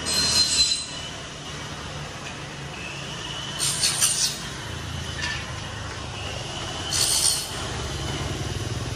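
A high metallic squeal, three times about three and a half seconds apart, over a steady low road-traffic rumble; a motorbike engine rises near the end.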